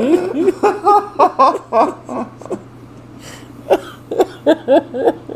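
Two men laughing hard in rapid runs of short ha-ha bursts, with a brief lull in the middle before a second run.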